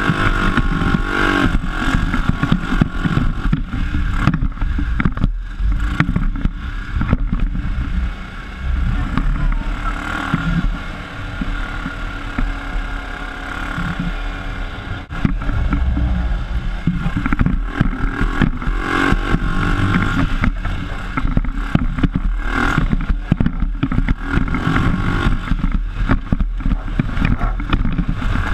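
PGO off-road buggy's engine running under way, its revs rising and falling, with the chassis rattling and knocking over the bumps of the track. The engine and rattling are quieter on a smoother stretch in the middle.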